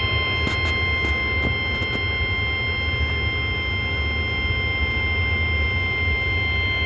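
NOAA Weather Radio 1050 Hz warning alarm tone, a single steady tone held unbroken, signalling that a warning such as a severe thunderstorm warning is being broadcast. It cuts off sharply near the end over a bed of radio hiss and low hum.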